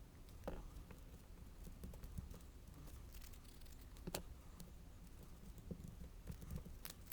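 Faint, scattered taps and clicks of small crafting tools and paper pieces being handled on a work table, a few sharper knocks among them, over a low steady hum.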